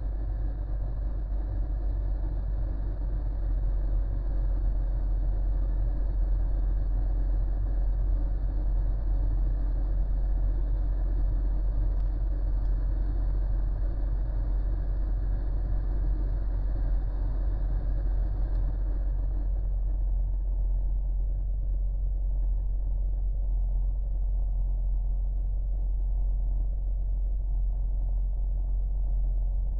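Renault 1.3 TCe turbocharged four-cylinder petrol engine idling steadily just after a cold start at freezing temperature, held at a raised idle between 1,000 and 2,000 rpm, heard from inside the cabin. About two-thirds of the way through, the higher part of the sound drops away and a duller, lower rumble remains.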